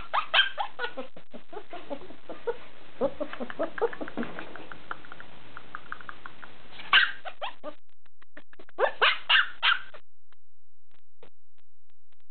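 Bernese mountain dog puppy yelping and whimpering: a run of high yelps at the start, softer whines over the next few seconds, one sharp yelp about seven seconds in and a quick cluster of three or four yelps about two seconds after it.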